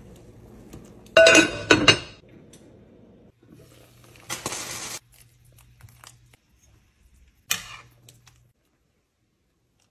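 Metal cooking utensils clinking against a pot. A quick cluster of sharp ringing clinks comes about a second in, a short rushing noise follows around four seconds in, and one more clink comes near the end.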